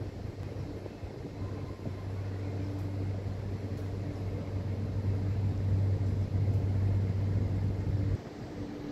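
ÖBB class 1144 electric locomotive standing still with a steady low electrical hum and a fainter tone above it. The hum cuts off suddenly about eight seconds in.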